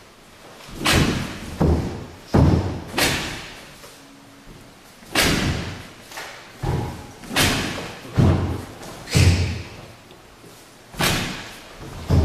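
Short karate punches striking a stiff wooden makiwara striking post: about eleven sharp thuds at uneven intervals, some in quick pairs, each with a brief echo.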